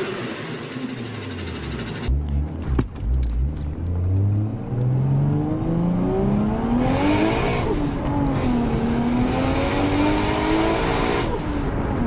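Toyota JZ-series turbocharged inline-six in a car accelerating hard. The pitch climbs for several seconds, drops at a gear change about seven and a half seconds in, then climbs again.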